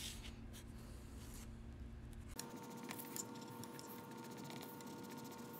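Faint scratching of a blue coloured pencil shading on paper in short strokes. About two seconds in, a faint steady hum comes in, with a few light ticks over it.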